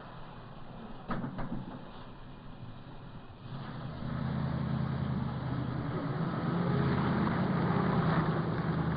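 A motor vehicle's engine running, coming in about three and a half seconds in and growing louder, over the hiss of an old film soundtrack; a couple of light knocks sound about a second in.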